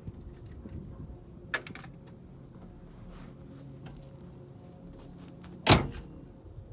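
Scattered small clicks and knocks of something being handled, then one sharp, loud knock near the end.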